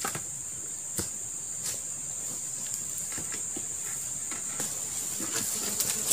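Insects droning steadily at one high pitch, with a few light knocks near the start.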